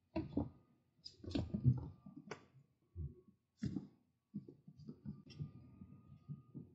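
Kittens' paws thumping and scrabbling on a wooden floor as they pounce and dash about, a run of irregular knocks.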